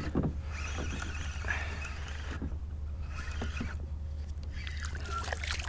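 Faint handling noise of a fishing rod and reel as a small fluke is reeled up to a kayak: scattered light clicks and rustles over a steady low rumble.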